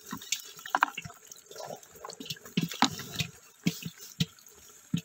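A hand rummaging through a heap of small wet fish in a basin: irregular wet splashes, slaps and clicks.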